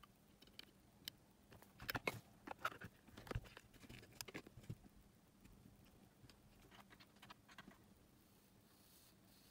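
Scattered light clicks and taps as hands handle a small plastic battery pack and its test leads, busiest from about two to five seconds in.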